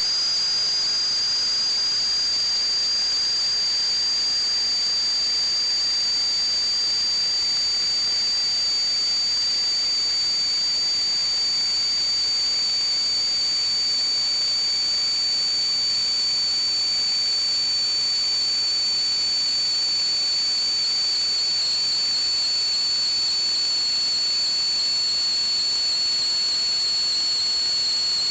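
Steady high-pitched whistle over a hiss, its pitch drifting only slightly, with no breaks.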